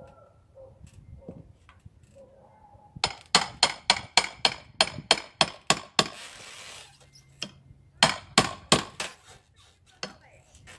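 Hammer striking a crowbar to pry out an old window frame: a fast run of about a dozen clinking blows, about four a second, then a brief scraping hiss, then five more blows.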